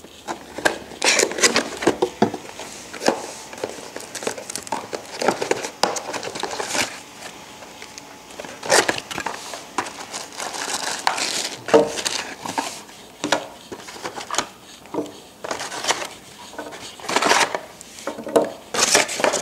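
Cardboard packaging and plastic-bagged accessories being handled during unboxing: irregular crinkling and rustling, with light taps and clicks as items are set down on a table.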